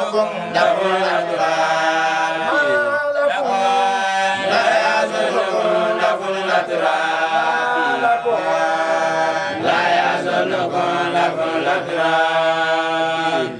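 Male voices chanting a melodic Islamic religious chant, with long held notes that slide up and down between phrases.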